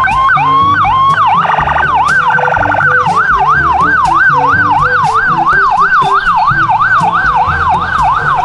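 Electronic police siren sounding in a fast rising-and-falling yelp, about three sweeps a second, broken by a brief rapid warble about two seconds in.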